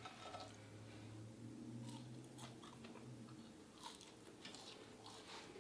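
Faint close-up chewing, soft mouth clicks scattered through it.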